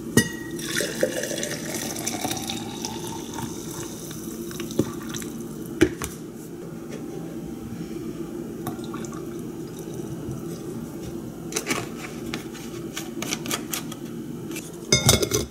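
Coffee poured from a French press into an insulated travel tumbler, the pouring tone rising as the tumbler fills, then soy milk poured in from a plastic jug. Knocks and clinks come as the press and jug are set down on the counter, several near the end.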